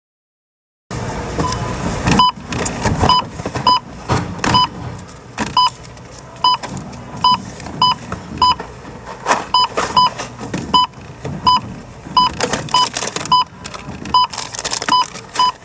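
Barcode scanner beeping each time an item is passed over it: about twenty short identical beeps, roughly one a second at first and faster near the end. Between the beeps come the rustle and knock of plastic-packaged products being handled.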